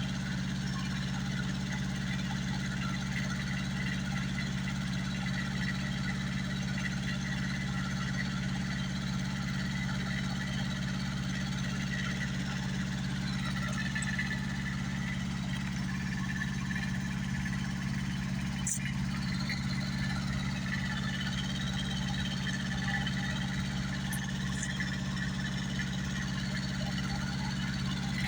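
An engine idling steadily, a low, even hum that holds the same pitch and level throughout.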